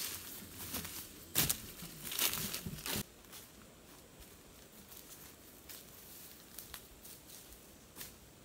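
Footsteps and rustling as a person pushes through dense ferns and undergrowth, with a few louder crunches in the first three seconds. Then the sound drops suddenly to a quiet background with a few faint footsteps.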